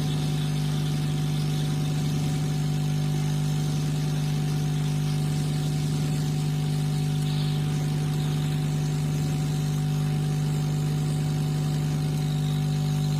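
Hot-air SMD rework blower running steadily, blowing hot air onto a phone board to melt the solder and glue holding the display: a constant hum with a strong low tone.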